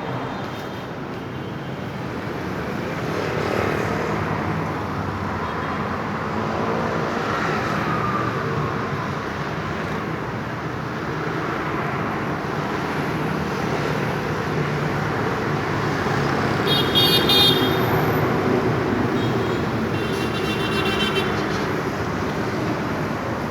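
Log-sawing machine running with a steady mechanical noise, with short high-pitched tones twice in the second half.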